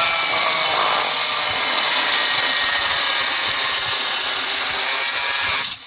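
Power tool running steadily under load with a high whine, starting abruptly and cutting off about six seconds later.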